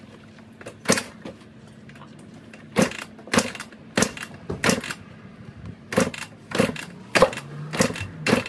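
Suzuki dirt bike being kick-started: about ten kicks of the kick-starter, mostly in quick runs of roughly two a second, each with a sharp mechanical clack. The engine turns over but does not catch, after sitting unstarted for about three months.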